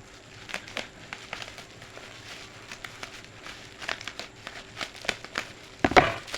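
Bubble wrap crinkling and crackling in irregular bursts as it is pulled off a new plastic lunch box, with a louder rustle near the end.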